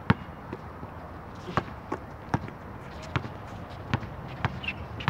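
A basketball bouncing on a hard outdoor court: sharp, separate thuds about every half second, unevenly spaced.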